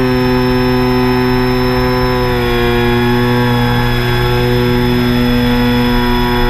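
3DR Solo quadcopter's motors and propellers running with a steady, multi-toned whine, the pitch dropping slightly a little over two seconds in.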